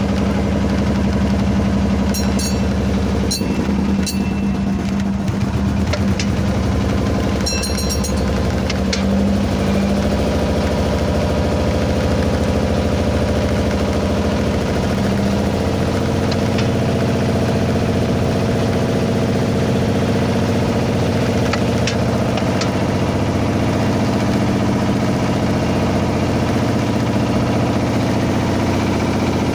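Fishing boat's engine running steadily at low speed. A few sharp clicks come through in the first several seconds.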